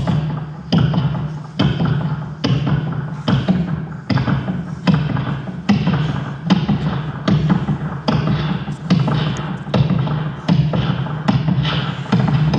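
Electronic soundtrack: a steady low drone under a sharp percussive hit that repeats evenly about every 0.8 seconds.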